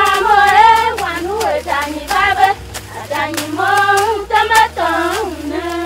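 Voices singing a wavering, melodic song, with hand-clapping keeping a steady beat.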